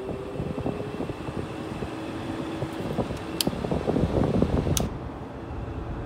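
A Haier 5200 BTU window air conditioner's fan motor running on low with the compressor off, giving a steady squealing tone over the hum of the fan. The owner puts the squeal down to a weakening motor, or else to the unit being overcharged. Two sharp clicks come about three and a half and five seconds in.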